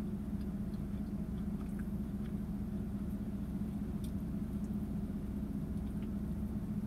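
Steady low hum of a car's idling engine heard inside the cabin, with faint chewing as a spinach feta wrap is bitten and eaten.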